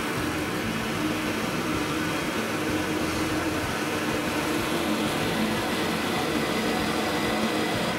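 Drill press running steadily while boring shallow flat-bottomed holes into an MDF board with a Forstner bit.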